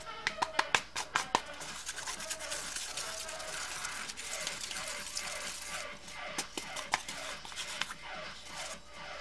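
Expanded polystyrene packing foam being broken and rubbed by hand: a quick run of sharp crackling snaps in the first second and a half, scratchy rubbing after that, and a few more snaps near the end.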